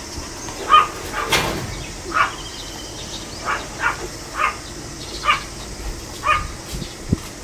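Pomeranian giving short, high barks, roughly one a second, with a single sharp click or knock among them.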